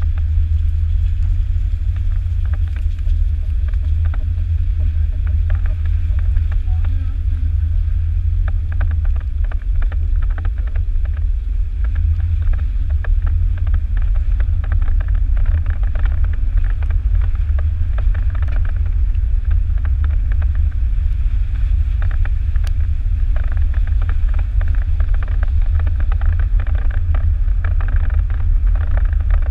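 A Jeep driving slowly along a wet gravel road, heard from its hood: a steady low rumble with frequent small ticks and crackles of gravel under the tyres, which grow busier about a quarter of the way in.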